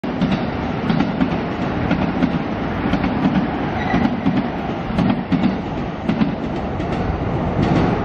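A train running on the railway tracks beside the street, a steady rumble with repeated wheel clatter about twice a second.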